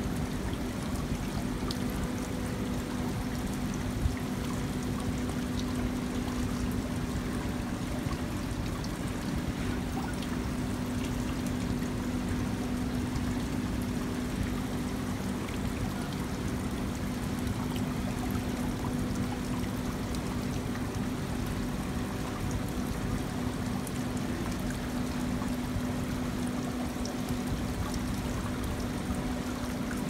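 Water trickling down a stacked-stone water-wall fountain, a steady running-water sound with a steady low hum underneath.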